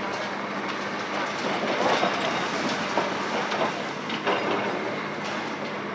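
Demolition machinery running with a steady low hum and irregular clanking and clattering.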